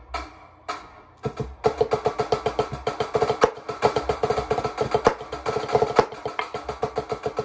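Drumline snare solo played with drumsticks on a practice pad: a few spaced strokes, then from about a second and a half in a fast, dense stream of strokes with a few sharper accents.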